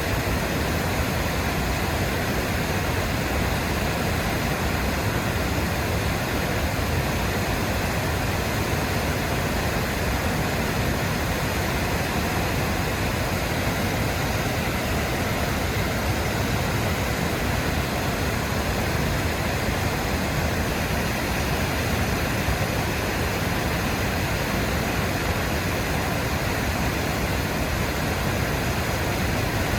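Waterfall: a steady rush of falling water with no change.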